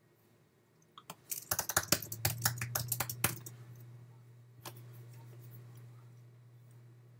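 Typing on a computer keyboard: a quick run of keystrokes from about a second in until just past three seconds, then a single click near five seconds. A steady low hum comes in partway through.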